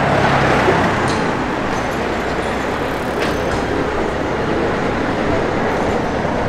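Steady city street traffic noise, with motor vehicles running close by.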